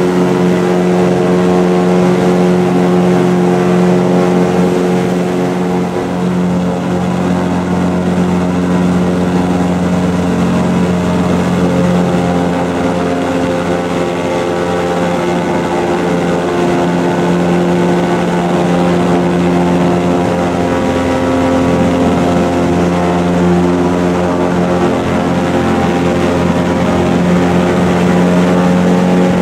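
Airboat's engine and propeller running at cruising speed: a loud, steady drone.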